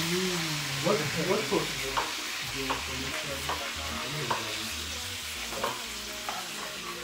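Food frying in hot oil: a steady sizzling hiss with scattered small crackles.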